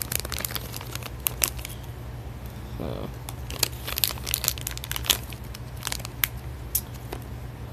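Crinkly blind-bag packet being torn open and crumpled by hand to get a small vinyl figure out, with irregular sharp crinkles and rips throughout.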